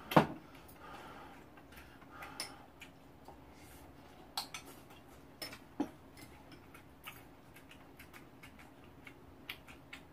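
Metal spoons clinking and tapping against bowls while eating: one sharp clink about a quarter second in is the loudest, then scattered lighter clinks every second or so.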